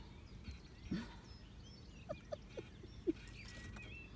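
Wooden post-and-rail fence creaking in short squeaks as a horse leans and rubs against it to scratch an itch: one creak about a second in, then a run of four between two and three seconds.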